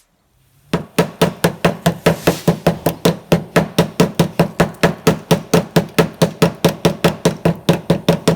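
Rapid, evenly spaced hammer-like knocks, about five a second, starting under a second in.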